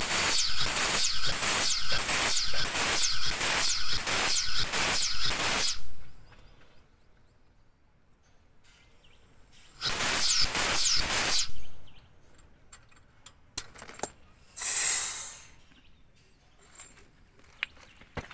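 Air-driven pump of a modified air-hydraulic bottle jack pulsing rhythmically, a little over two hissing strokes a second, as it pumps the jack up under a truck axle; it stops about six seconds in, runs again briefly near ten seconds, and a short hiss of air follows a few seconds later.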